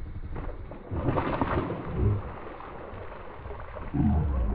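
A big bass blowing up on a speed worm at the surface: a rough splash about a second in and more thrashing water after it. The fish misses the hook.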